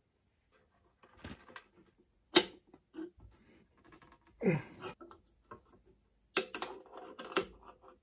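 Small metal fittings being handled and pushed together: scattered clicks and clinks as a Foster quick connector is fitted onto the welding machine's gas fitting. The sharpest click comes about two and a half seconds in, there is a short scrape midway, and a cluster of clicks comes near the end.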